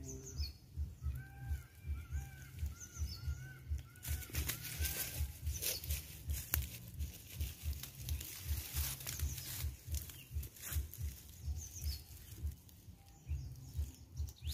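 A bird calls a quick run of about nine short, arched notes in the first few seconds, over a low throbbing pulse that repeats about three times a second throughout. From about four seconds in comes a few seconds of rustling in dry leaves and grass as a fish is handled on the ground.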